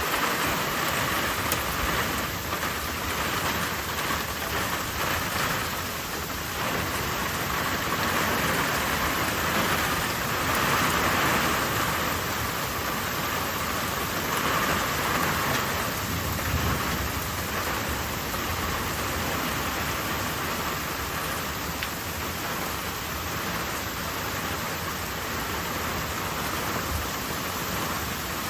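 Heavy rain pouring steadily in a severe thunderstorm, an even hiss that barely changes in level.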